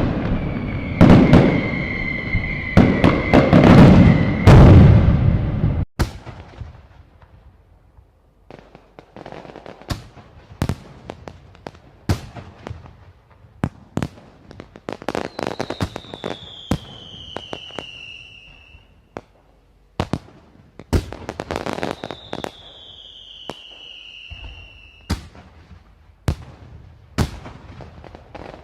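Firecrackers bursting: a dense, loud barrage of bangs with a steady whistle over it, cutting off abruptly about six seconds in. Then scattered single sharp bangs and pops, with two long whistles falling in pitch from whistling fireworks.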